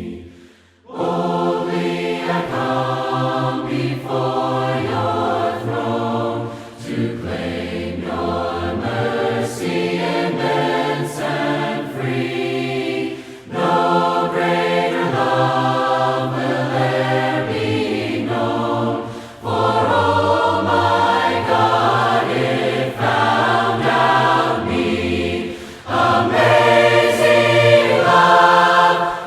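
A choir singing a hymn in parts, unaccompanied. The singing begins about a second in and moves in phrases with short breaks roughly every six seconds.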